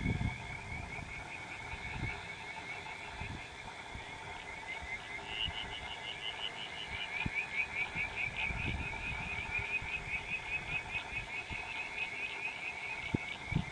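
Frogs calling in a rapid pulsing chorus, a quick train of repeated calls that grows stronger about four seconds in, over intermittent low rumbles.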